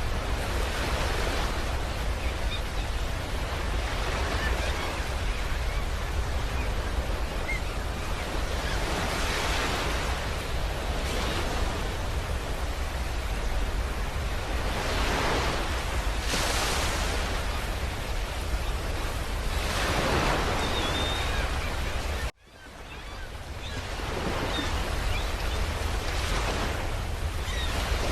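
Continuous rushing noise over a deep low rumble, presented as the 'sound' of the star UY Scuti, swelling and ebbing every few seconds like surf. About 22 seconds in it cuts out abruptly, then fades back up over a couple of seconds.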